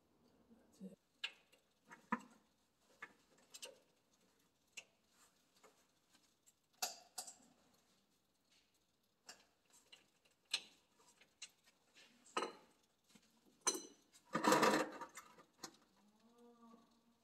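Irregular clicks and knocks of a hand wrench and tools working a hydraulic drain plug on the underside of a Kubota B2301 compact tractor, with a louder rush of noise lasting about a second, about fourteen seconds in.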